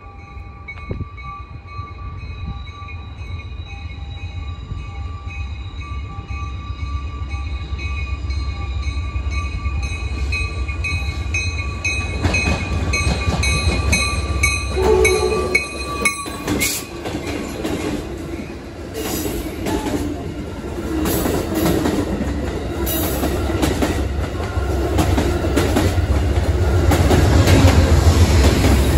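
Amtrak passenger train headed by two GE Genesis diesel locomotives approaching and passing at speed: the engines' low rumble and the wheel and rail noise build steadily, loudest as the locomotives go by near the end.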